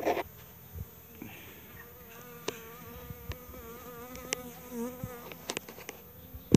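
Honeybees buzzing close to the microphone, one bee's wavering hum most prominent from about two seconds in to about five and a half seconds. A short loud handling noise comes at the very start, and a few light knocks are scattered through.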